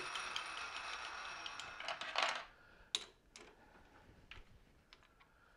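Metal lathe running with a steady whine, shut off a little over two seconds in. A few sharp metallic clicks follow as a chuck key goes into the three-jaw chuck.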